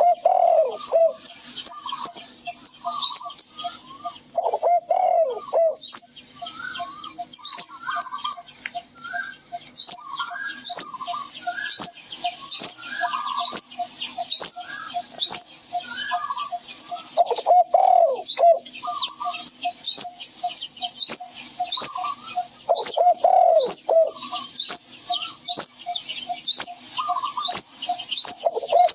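Birdsong chorus: many quick high chirps and trills, over a steady train of short low notes about three a second, with a lower call that slides down in pitch every several seconds.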